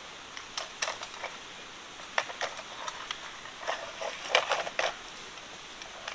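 Scattered light clicks and taps of a tape measure being handled and wrapped around a steel reamer on a metal welding table, with a small cluster of them a little past the middle.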